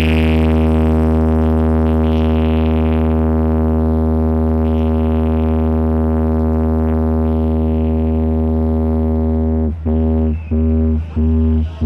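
Deep synthesized bass tone played through a DJ sound system's bass cabinets as a vibration test, held steady for nearly ten seconds, then chopped into short repeated pulses about one and a half a second.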